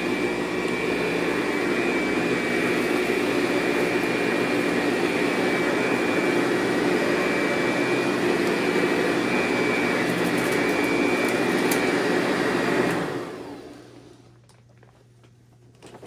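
Eureka The Boss 5-amp upright vacuum cleaner running steadily with a high whine over its motor noise. About 13 seconds in it winds down and stops.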